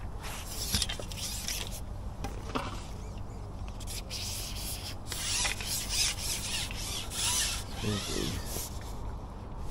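Rubbing and scraping of a carbon fishing pole being handled and fed out through the hands, with irregular knocks and a busier stretch of scraping in the second half.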